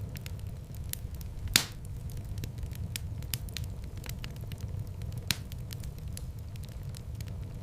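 Wood fire crackling in a fireplace, with frequent small snaps over a low steady rumble of flames. A sharp loud pop comes about a second and a half in, and another near the five-second mark.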